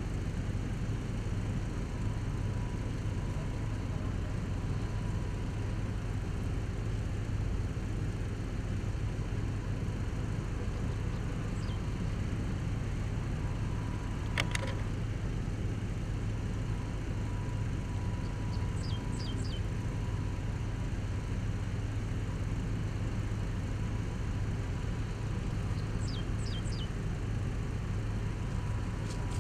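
Steady low rumble of an idling vehicle engine. A few short, faint, high falling chirps come in groups around the middle and near the end, and there is one sharp click about halfway.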